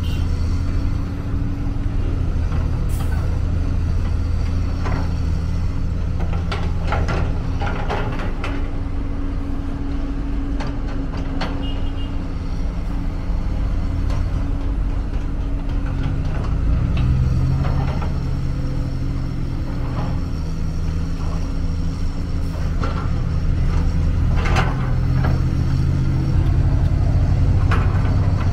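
Komatsu hydraulic excavator's diesel engine running steadily, rising in pitch under load twice as the arm and bucket work, with scattered clanks and knocks from the bucket and soil.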